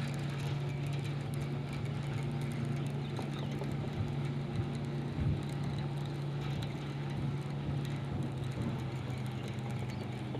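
Boat motor running with a steady low hum. Faint scattered ticks sound over it.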